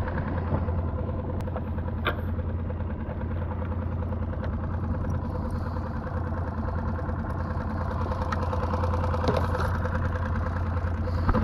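Small outboard motor on a Solo Skiff running steadily under way, a constant low drone. A few light clicks sound in the first couple of seconds.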